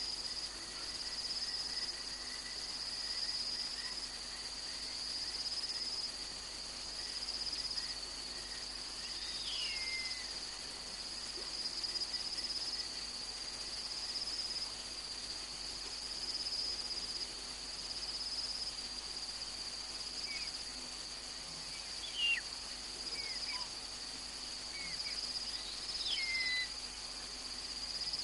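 Night chorus of crickets: a steady, high chirring that swells and fades slowly. A few short, high calls slide downward over it, once about a third of the way in and several times near the end.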